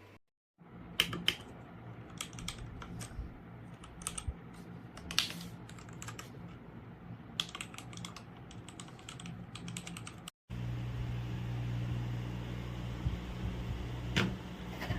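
Typing on a Royal Kludge RK R87 mechanical keyboard: irregular runs of key switch clicks. The sound cuts out briefly about ten seconds in, and the typing then continues over a steady low hum.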